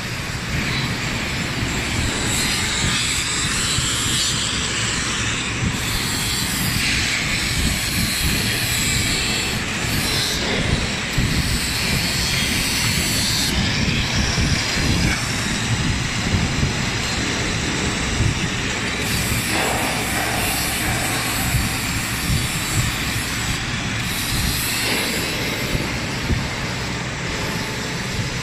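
Edge milling machine running and milling a bevel along the edge of a metal plate: a steady, loud machining noise with a rough crackle underneath.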